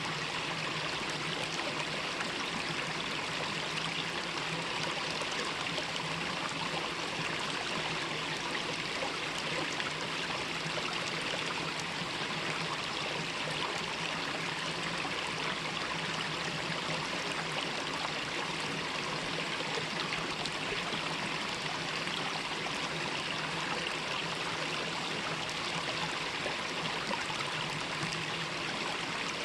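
Mountain valley stream flowing over rocks, a steady rushing and trickling of water.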